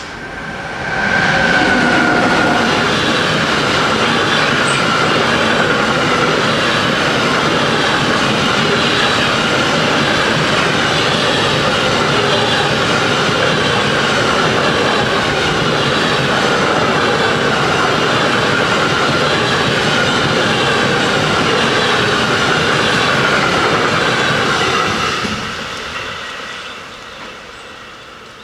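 A train passing through a level crossing at close range. It is loud for about twenty-four seconds with a wavering high tone over the rumble, then fades away near the end.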